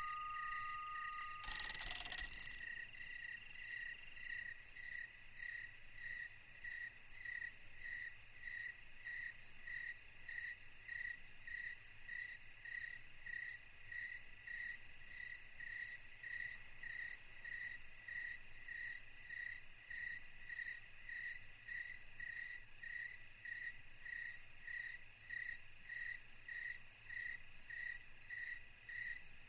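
Steady chirping like crickets at night, short even chirps at about one and a half a second over a faint hiss. A brief burst of noise comes about two seconds in.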